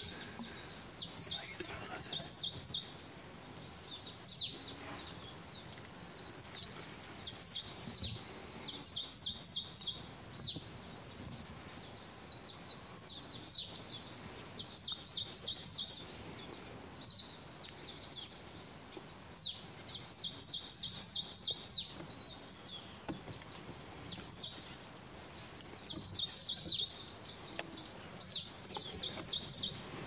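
Small birds chirping in a busy, continuous chorus of short, high notes, many of them quick downward slides.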